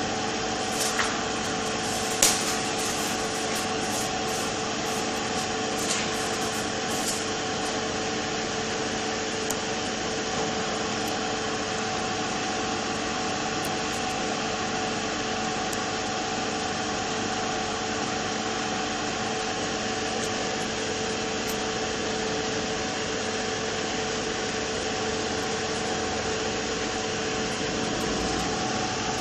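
Steady whir of an electric fan or blower with a constant hum, unchanging throughout. A few light clicks in the first several seconds, the sharpest a little over two seconds in.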